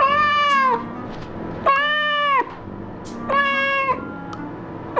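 A golden British Shorthair cat meowing three times, about every second and a half, each meow loud and under a second long and dropping in pitch at its end. These are insistent begging meows for a treat.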